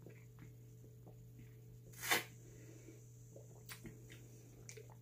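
Plastic shaker cup being handled: faint ticks and one brief louder rustle about two seconds in, over a steady low hum.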